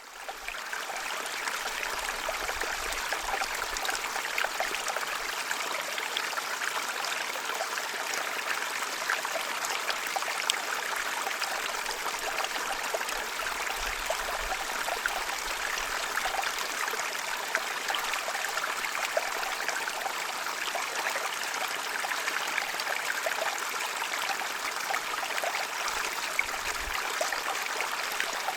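Gentle stream running steadily over stones, a continuous babble of trickling and small splashes. It fades in over the first half-second.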